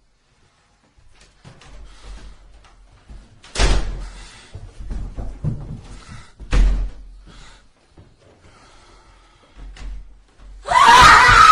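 Door slamming in a horror sound effect: two heavy bangs about three seconds apart, each echoing, with fainter knocks and creaks around them. About a second before the end a loud, wavering sound breaks in.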